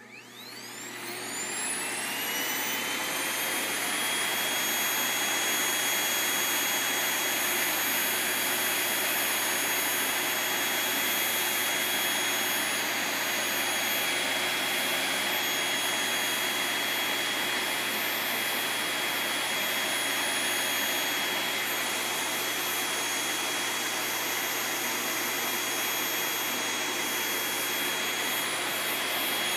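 Vacuum cleaner switched on, its motor whine rising as it spins up over the first couple of seconds, then running steadily at full speed with a high whine.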